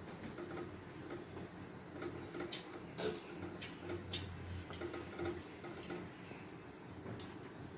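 A metal spoon stirring and turning fried rice in a black iron kadhai: soft scraping, with a few light clinks against the pan, the clearest about three seconds in.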